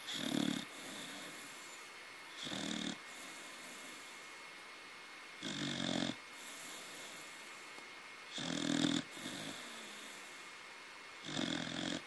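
A corgi snoring in its sleep: five short snores, about one every three seconds.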